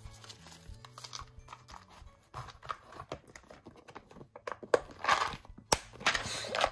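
Paper sticker sheets being handled: rustling and crinkling with scattered taps and clicks, busier and louder in the last couple of seconds.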